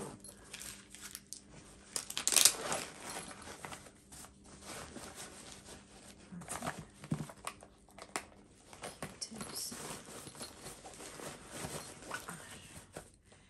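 Irregular rustling and crinkling of small packed items and bag fabric being handled and pushed into a travel bag's mesh compartment, with a sharp crackle about two seconds in.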